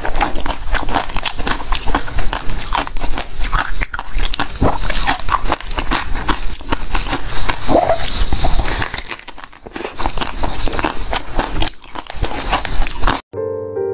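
Close-miked eating sounds of a fig being bitten and chewed: rapid wet crackles and clicks, loud and continuous. Near the end they stop abruptly and electric piano music starts.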